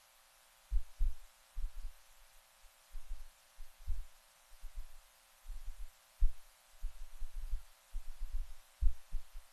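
Irregular low, dull thuds of footsteps on a hardwood floor as several people walk about slowly, about two a second and uneven in strength.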